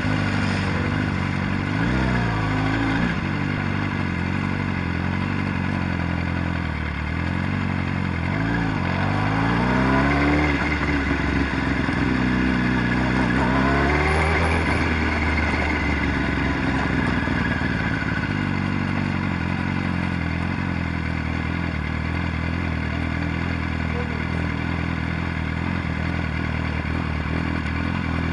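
Sport motorcycle engine at low speed, its pitch rising and falling with a few short revs in the first half, then running steadily near idle for the rest.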